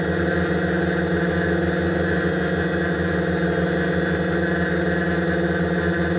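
Quanum Venture quadcopter's electric motors and propellers droning steadily while it hovers, heard from the camera mounted on the craft, a buzzing hum of several steady tones.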